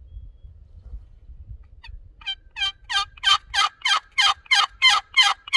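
A series of about ten raspy turkey yelps, about three a second, starting about two seconds in and growing louder toward the end.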